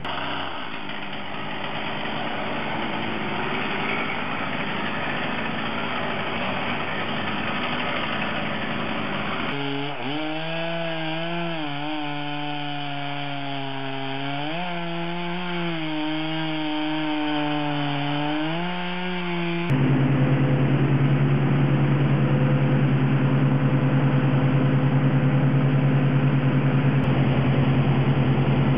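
Gas chainsaw running, its engine note rising and falling with the throttle. About two-thirds of the way through, a louder, steady engine drone cuts in abruptly.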